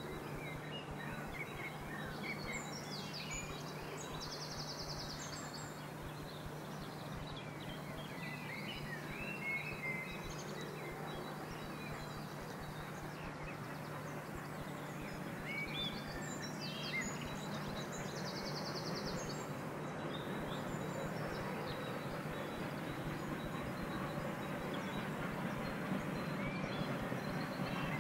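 Woodland birds chirping and singing, with a fast high trill twice, over a steady distant rush that grows gradually louder through the second half: the double-headed steam train approaching up the bank, not yet in sight.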